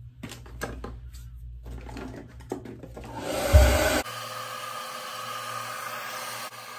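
Light handling clicks and rustles, then a handheld hair dryer switches on about three seconds in and blows steadily, aimed at a wig's lace front.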